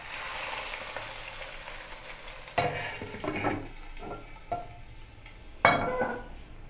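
Hot tarka oil with garlic, ginger and chillies poured from a frying pan onto cooked mustard greens, sizzling hardest at the start and dying down over a couple of seconds. Then a string of clanks and knocks from the pan and glass pot lid, the loudest one ringing briefly near the end.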